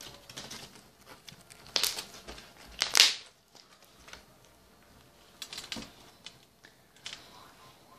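Shaving-foam slime being kneaded and squeezed between the hands, giving a few short pops as air pockets burst, the loudest about three seconds in, with smaller clicks later.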